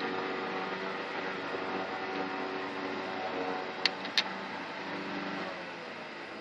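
A steady motor hum that fades away near the end, with two sharp clicks in quick succession about four seconds in.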